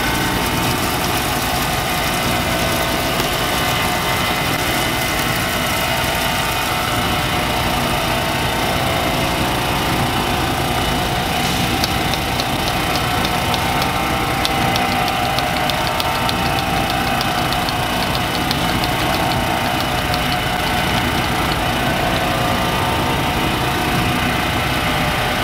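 Electric motor of a home-built lapidary polishing machine running steadily, spinning a 400-grit wet sanding wheel while a chrysocolla nugget is held against it to smooth it. About halfway through, a run of fast, light ticks joins the steady hum for several seconds.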